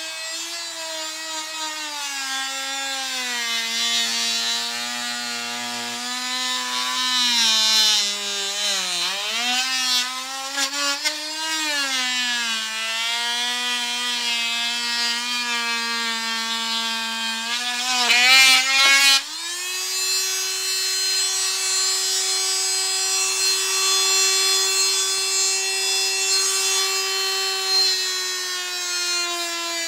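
Handheld corded electric saw cutting through deer skull bone at the antler base: a motor whine that sags and wavers in pitch as the blade bites into the bone. About 18 seconds in comes a brief harsh rasp, after which the pitch jumps up and holds steady.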